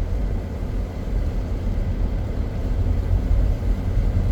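Steady low rumble of a car driving, heard from inside the cabin: road and engine noise with no distinct events.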